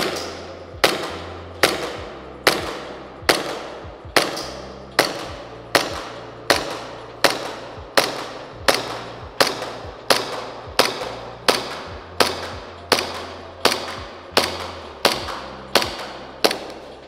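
Umarex Elite Force Glock 45 green-gas airsoft pistol fired in a steady string, about three shots every two seconds. Each shot is a sharp crack that echoes in a concrete room, as a full magazine is emptied on one gas fill.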